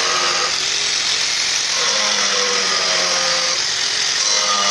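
Handheld grinder cutting into wood: a steady, loud grinding rasp over the motor's whine, the pitch drifting up and down a little as the disc bites into the grain.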